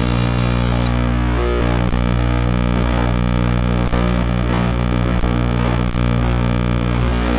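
Loud, unbroken experimental drone music: a dense stack of steady low hums under a layer of noisy hiss.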